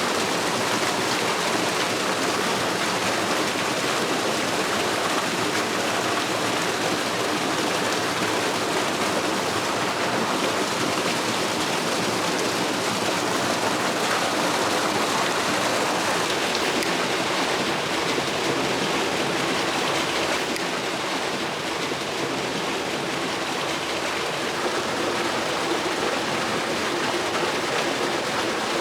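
Mountain waterfall: a steady, even rush of falling water.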